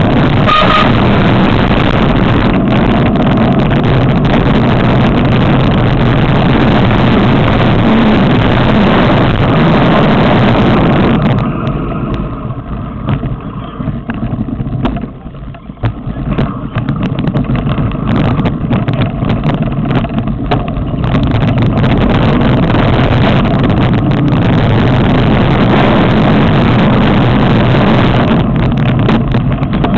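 Loud, continuous wind buffeting and rattling on a camera carried down a rough dirt trail on a downhill mountain bike, with frequent knocks from bumps. It eases off for a few seconds around the middle, then comes back just as loud.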